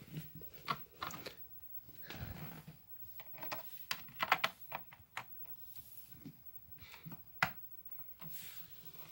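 Irregular clicks and taps from a laptop and its cable being handled, with a quick cluster of keyboard-like clicks about halfway through and one sharper click near the end.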